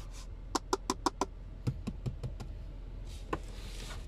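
Fingers tapping on the hard plastic cupholder of a 2010 Kia Forte SX's rear fold-down armrest: a quick run of about five sharp taps, then a few softer ones and one more near the end.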